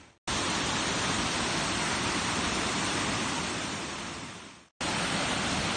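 Waterfall's water rushing steadily, a dense, even hiss. The sound drops out abruptly twice, just after the start and a little under five seconds in.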